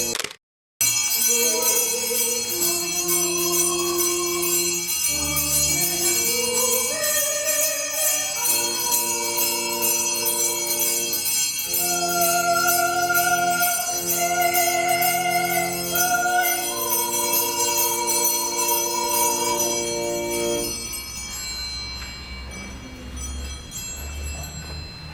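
Church music: long held notes changing every second or two under a bright, steady jingling of bells. The sound cuts out for about half a second just after the start, and the music ends about 20 seconds in, leaving a fainter tail.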